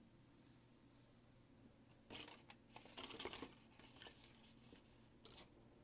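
Small tools and parts clinking and rattling as they are rummaged through on a cluttered hobby desk, starting about two seconds in and coming in quick irregular clusters for a few seconds.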